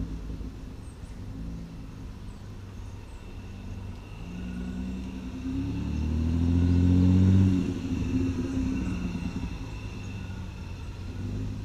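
Nissan Maxima V6 with the muffler deleted and a straight pipe in place of the resonator, pulling in first gear: the raspy exhaust note climbs in pitch and grows louder for a few seconds, then falls away suddenly about two-thirds of the way in, leaving a lower, steadier rumble.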